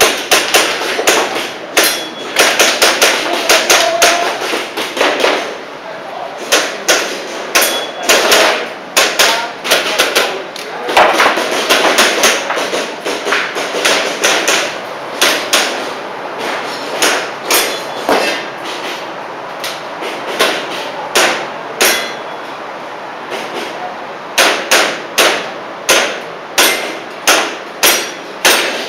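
Airsoft pistol shots in quick strings of sharp cracks, often around two a second, with short pauses between strings.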